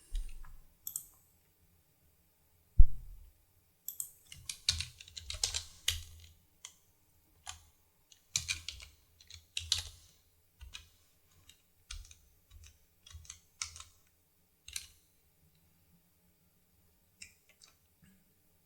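Typing on a computer keyboard: irregular keystrokes in short runs, busiest in the middle and thinning out near the end. There is a single louder low thump about three seconds in.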